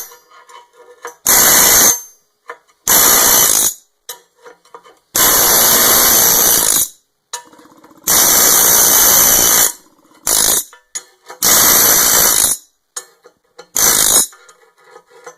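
DeWalt pneumatic air hammer with a long chisel rattling in about seven loud bursts, from a quick blip to nearly two seconds each, chipping plasma-cut slag off steel. Light metallic clinks sound between bursts.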